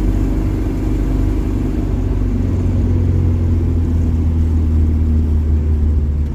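Mercedes-Benz OM616 four-cylinder diesel running under way through its new homemade exhaust with a Saab muffler, a steady low engine note that eases slightly lower partway through.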